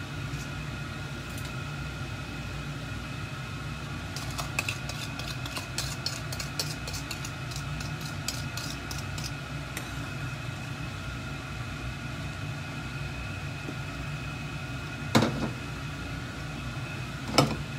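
A steady kitchen hum runs throughout. From about four to nine seconds in, light scattered ticks come as salt and pepper are tipped from a wooden bowl into a stainless steel pot of water. Near the end, a metal ladle gives two sharp clinks against the pot.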